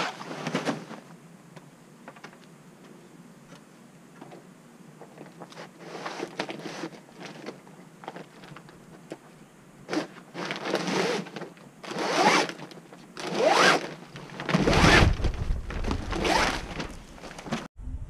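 Vinyl RV awning fabric rasping in a series of zipper-like strokes, each about a second long, as the old canopy is cut and pulled free. The strokes are faint at first and grow louder from about ten seconds in.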